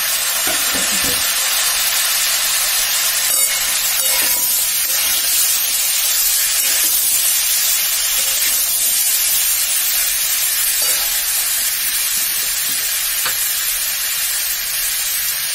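Cubed potato, papaya and tomato sizzling steadily in hot oil in a pan while a metal spatula stirs them, with a few light scrapes.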